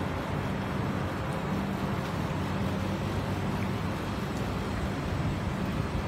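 Steady urban background noise: a low, even rumble of distant road traffic with a steady hum beneath it.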